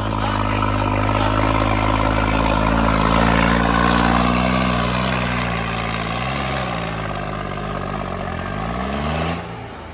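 Tractor diesel engine running hard at high revs, its pitch dipping and rising a few times in the second half, then dropping away near the end.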